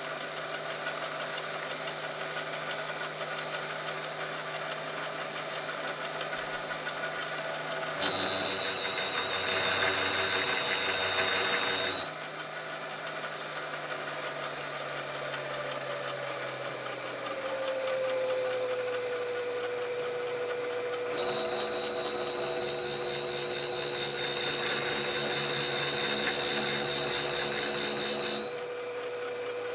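Machine tool running steadily while cutting a hole in 4140 steel, with two louder spells of high whine, one of about four seconds and a longer one of about seven seconds, that start and stop abruptly.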